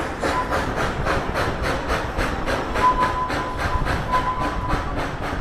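Narrow-gauge steam locomotive working along, its exhaust chuffing about four times a second over the rumble and clatter of the wheels on the rails. A thin squeal comes and goes.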